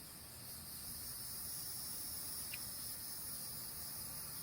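Outdoor insect chorus: a steady, high-pitched buzzing trill from many insects.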